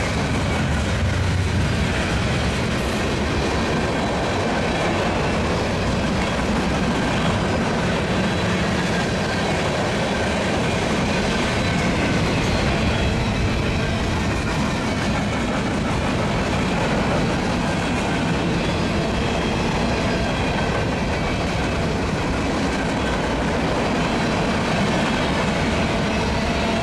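Freight cars of a Union Pacific mixed freight train rolling past: a steady, loud rumble of steel wheels on the rails.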